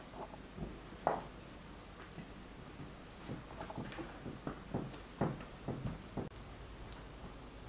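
Soft dough being patted and pushed into a ball by hand on a floured wooden board: a run of soft thumps and slaps, with a sharper knock about a second in.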